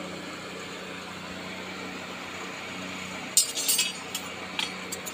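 Long iron tandoor rods clinking: a quick cluster of metallic clinks about three and a half seconds in, then a few single clinks, over a steady low hum.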